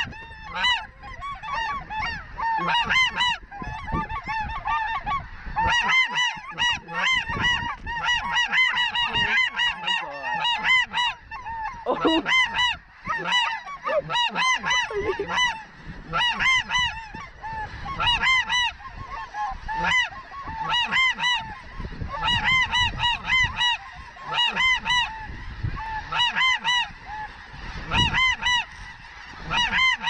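A dense chorus of snow goose calls: many high, quick honks overlapping without a break, with an intermittent low rumble underneath.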